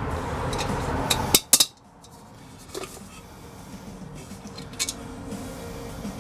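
Small metal parts and tools clinking against the steel headlight bucket as it is assembled: a steady noise cuts off about a second and a half in, with a few sharp metallic clicks, then scattered lighter clinks.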